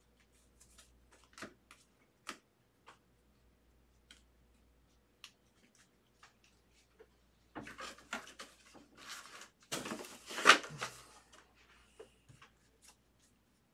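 Trading cards and card stacks being handled on a table: scattered light taps and clicks, then about three seconds of rustling and sliding handling noise starting about eight seconds in.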